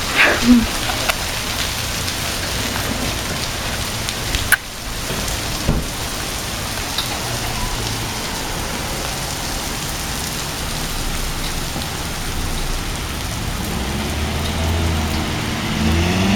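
Hailstorm pelting down: a steady hiss of rain and hail striking surfaces, with a sharp knock about four and a half seconds in and another near six seconds. A low hum rises near the end.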